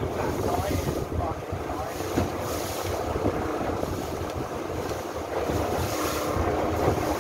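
Long-tail boat under way on a river: its engine runs steadily beneath wind buffeting the microphone and water rushing past the hull, with gusts of hiss now and then.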